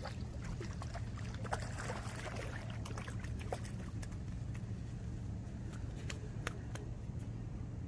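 Steady low motor hum, with scattered light clicks and ticks over it.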